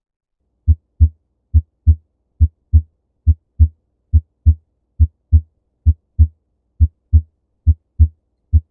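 Heart sounds heard through a stethoscope over the pulmonary valve area. Regular lub-dub pairs at about seventy beats a minute begin a little under a second in. The second heart sound, from pulmonary valve closure, is accented.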